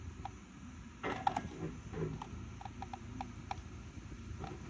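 Small clicks and creaks of plastic parts as a 2007 Ford Focus fuel pump module is worked loose and pulled out through the fuel tank opening, with a cluster of clicks about a second in.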